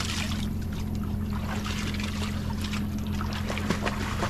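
Water splashing and sloshing as a child swims beside a boat, over a steady low motor hum.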